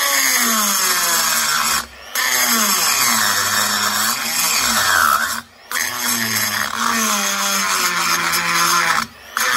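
Straight die grinder cutting into the cast-iron rocker-cover flange of a Harley-Davidson Ironhead cylinder head, profiling the inside of the opening. It runs in four stretches with short breaks between them, and its pitch shifts as the cutter bites.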